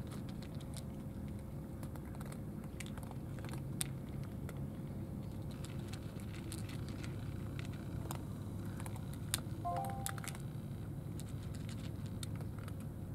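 A cat crunching dry kibble from a bowl: scattered sharp clicks of chewing over a steady low rumble.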